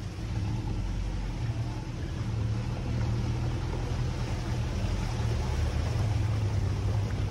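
Land Rover 4x4's engine running steadily while driving an off-road forest track. It is a continuous low drone that grows a little louder about two seconds in.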